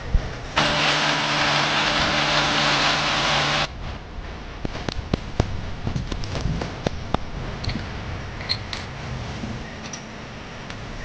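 An electric power tool's motor runs steadily for about three seconds and stops abruptly, followed by scattered knocks and clicks of handling.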